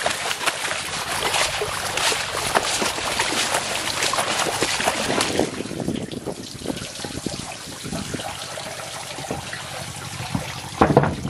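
Water splashing and trickling out of a fine-mesh prawn net as it comes up out of the river. The splashing is heavy at first and eases off about halfway through, with a short louder sound near the end.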